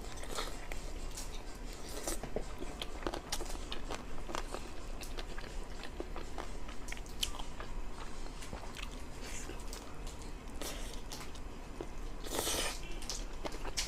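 Close-up eating sounds: chewing with many small crunchy bites and wet clicks, and one louder, longer noisy burst near the end.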